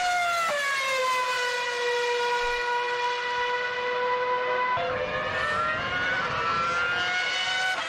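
2007 Formula One cars' 2.4-litre V8 engines running at very high revs: a high-pitched engine note that drops in pitch just after the start as a car goes by, holds steady, then a second engine note comes in about five seconds in and rises slightly.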